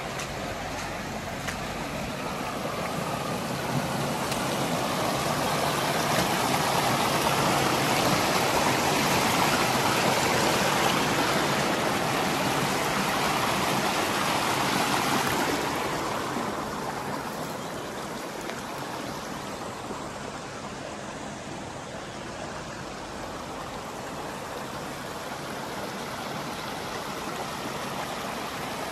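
Shallow rocky stream running and splashing over boulders and small cascades. It grows louder a few seconds in, then drops back to a softer running sound about sixteen seconds in.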